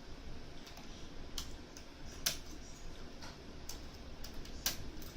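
Faint, irregular small metallic clicks of picking tools working the discs inside a Mosler M5700 safe deposit box lock, as the last discs are being picked. A few clicks stand out louder, about a second and a half in, two seconds in and near the end.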